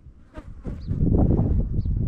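Wind rumbling on the microphone in gusts, growing stronger about a second in, with a faint short high chirp recurring about once a second.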